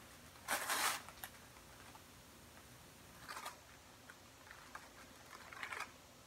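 Plastic wrapper of an Oreo cookie package crinkling as it is handled: one short loud rustle about half a second in, a click, then a few fainter rustles near the middle and end.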